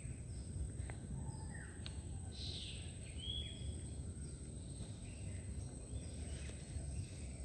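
Quiet outdoor ambience: a low steady rumble with a few short, faint bird chirps, the clearest a brief whistle about three seconds in, and a couple of soft clicks.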